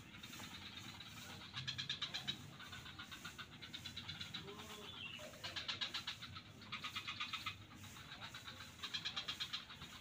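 Frogs calling in a swamp chorus: several loud trains of rapid, clicking pulses, each under a second long, rise above a steady background of fainter calls.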